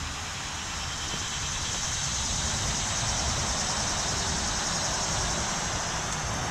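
Steady high-pitched buzzing of cicadas in the trees, over a low rumble.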